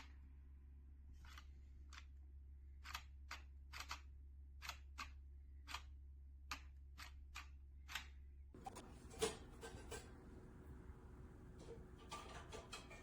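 Faint, sharp clicks at irregular spacing, roughly one or two a second, over a steady low hum; about eight and a half seconds in the hum drops out and a different, noisier background takes over.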